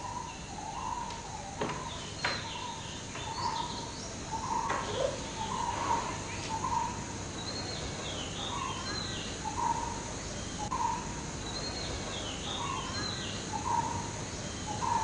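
Birds calling: one bird repeats a short note about once a second, while higher, downward-sweeping chirps come in little clusters every few seconds.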